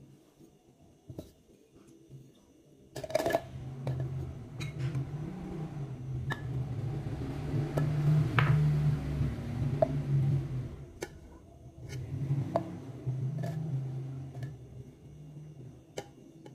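Whole spice ingredients (shallots, garlic, ginger, turmeric, candlenuts and red chillies) being tipped from glass bowls into a tall plastic jar, with a series of clinks and knocks of glass and plastic, the loudest about three seconds in, over a low rumble through the middle.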